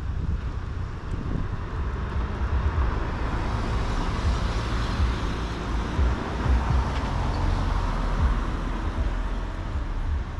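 A car driving past on the street, its tyre and engine noise swelling to a peak between about five and eight seconds in, then easing as another vehicle comes along. A low rumble runs underneath throughout.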